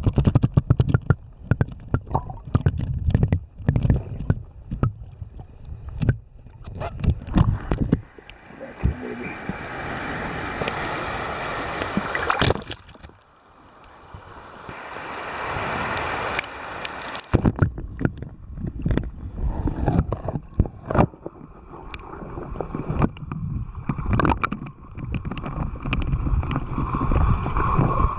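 Creek water splashing and gurgling around a camera held at the surface and dipped under, with stretches of muffled rushing and many sharp clicks and knocks.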